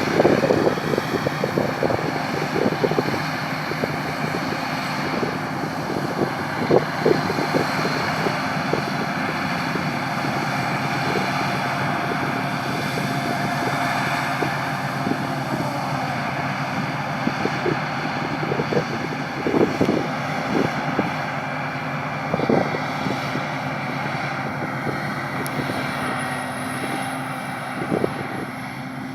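Combine harvester running steadily with a constant engine drone, with scattered short knocks and rattles throughout.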